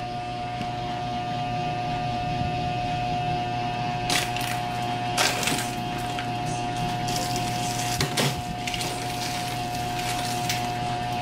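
Items being moved about inside an open refrigerator, with a few short knocks and rattles about four, five and eight seconds in, over a steady hum.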